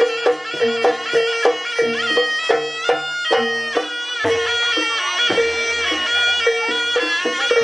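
Jaranan Buto gamelan music: a reedy, wavering shawm melody over a quick, even beat of struck metal percussion and drum. A deeper low tone comes in about four seconds in.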